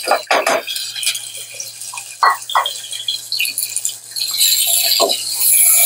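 Cut bitter gourd pieces sizzling in hot ghee in a small saucepan: a steady hiss with a handful of sharp crackles and pops.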